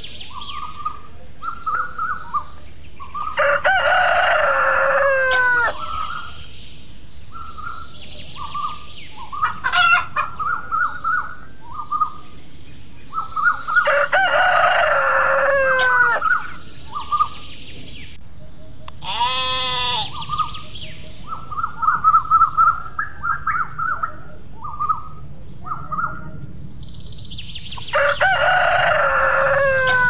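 A rooster crowing three times, each crow about two seconds long and ending on a falling pitch, with hens clucking in short repeated calls in between. About two-thirds of the way through there is one brief call that swoops up and down in pitch.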